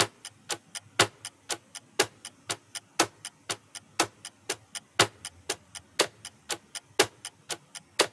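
Countdown-timer ticking sound effect, like a clock: sharp ticks at about four a second, the one on each whole second louder. It counts off the seconds left to answer a quiz question.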